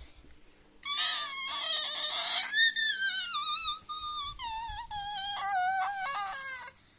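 A child screaming in a high, wavering voice for about six seconds, the pitch sliding downward, in pretend fright.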